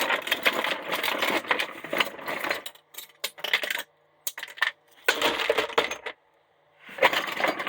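Steel scrap parts from stripped-down cordless tools clattering and clinking as they are dropped together. There are three bouts of clatter with a few single clinks between them.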